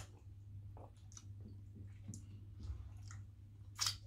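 Wet mouth sounds of people eating soupy fish with their fingers: scattered small clicks, smacks and chewing. A louder, sharp suck comes near the end as food is taken off the fingers.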